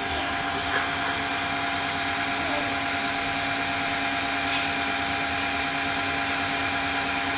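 Tineco wet-dry vacuum's motor running steadily in its self-cleaning deep-clean cycle in the charging base: an even rushing noise with a steady hum and a higher whine.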